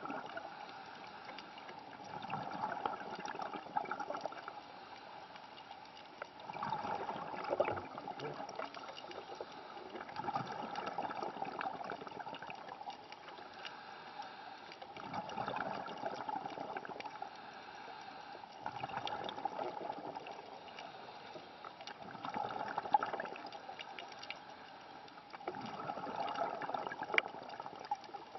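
Scuba diver's breathing heard underwater: bubbly bursts from the regulator's exhalation, coming back about every four seconds.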